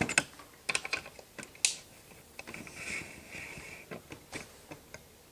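Handling noise: a run of irregular light clicks and knocks from small hard objects being moved about, with a brief scrape about three seconds in.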